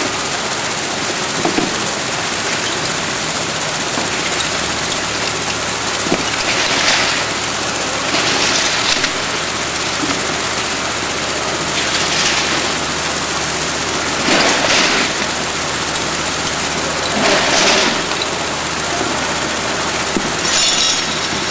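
Modular plastic belt conveyor with a roller sorting section running steadily, with six short noisy bursts a few seconds apart as products are sorted.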